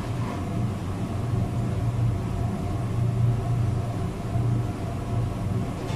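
Steady low mechanical hum with a faint even hiss above it, unchanging throughout.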